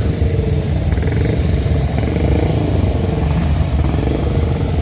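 Motorcycle engine running steadily at low revs, a loud dense throb whose pitch rises and falls slightly.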